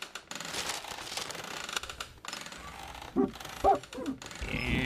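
A rattling mechanical clatter, then a chair creaking in a few short strokes, in a cartoon soundtrack.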